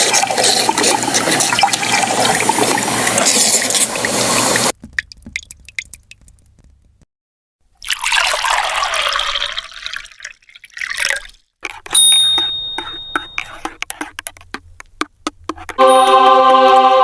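Coffee machine dispensing into a cup, a steady liquid rush that cuts off suddenly after about five seconds. A shorter rush follows and fades, then a series of clicks, a thin tone and a brief pitched tone near the end.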